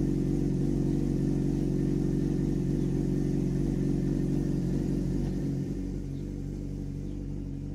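Suzuki GSX-R 600 K9's inline-four engine idling steadily; it gets a little quieter about six seconds in.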